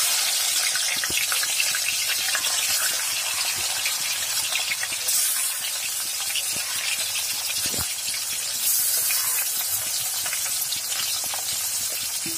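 Pieces of chela fish, salted and turmeric-coated, sizzling and crackling as they shallow-fry in hot mustard oil. The sizzle gets louder about five seconds in and again near nine seconds as more pieces go into the oil.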